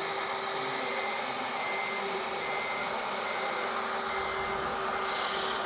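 Radio-controlled scale model excavators working, a steady mechanical whir with a faint high beep that repeats on and off.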